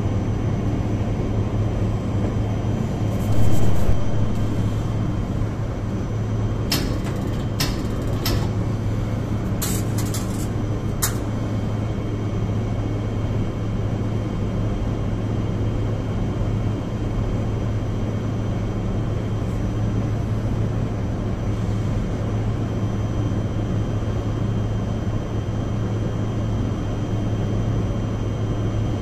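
Biological safety cabinet's blower fan running with a steady hum. A few short, sharp clicks come between about seven and eleven seconds in.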